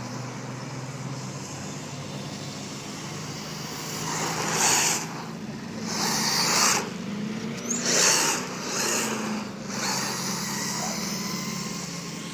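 Quanum Vandal 1/10 4WD electric RC buggy driving fast on rough asphalt, with several loud bursts of tyre hiss and scrub in the middle as it sweeps close by, over a steady low hum.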